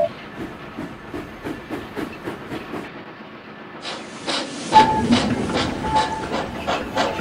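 Steam locomotive sound effect: rhythmic chuffing with steam hiss, faint at first and much louder from about four seconds in, as a train moves off.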